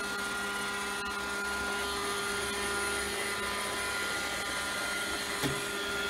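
Roomba robot vacuum running across carpet: a steady motor and brush whine with a few constant tones, and a brief knock near the end.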